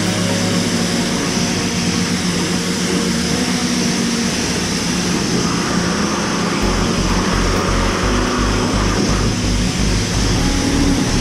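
A car-wash high-pressure wand spraying water and foam onto a motorcycle, a steady loud hiss. Background music with a steady low beat comes in about six and a half seconds in.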